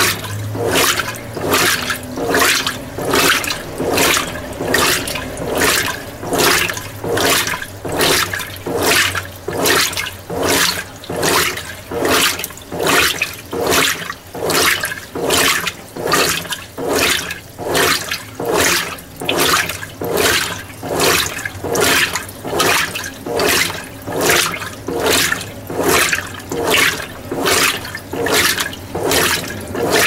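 Mueller Energy 8 kg top-load washing machine in its wash cycle, the agitator churning a load of whites back and forth in the water: rhythmic swishes and sloshing, a little over one a second.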